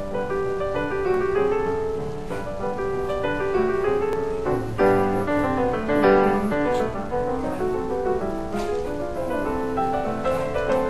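Background music: a piano playing a flowing melody.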